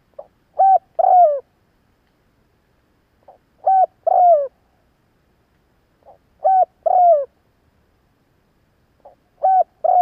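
Spotted dove cooing: a phrase of a faint short note, a short coo, then a longer coo that falls in pitch at the end, repeated about every three seconds, four times, the last still going at the end.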